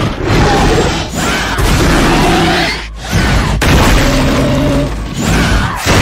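Heavy crashes and booms as walls, a door and ceiling tiles are smashed by a thrown creature, in several successive surges, with the creature's pitched screeching cries on top.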